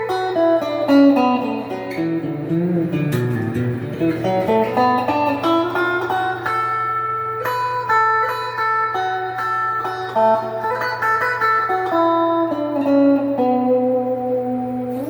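Donner DST200 electric guitar with stock pickups, played through an amplifier. It plays melodic single-note lines with string bends and ends on a held note, over a steady low hum.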